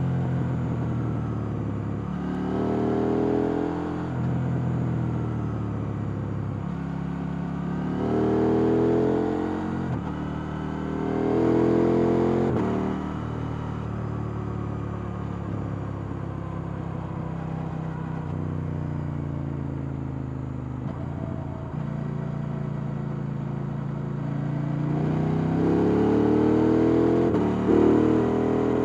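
KTM 890 Duke R's parallel-twin engine on its stock exhaust, ridden hard: four bursts of acceleration with the pitch climbing through the revs, the longest near the end, and steadier running and engine braking between them.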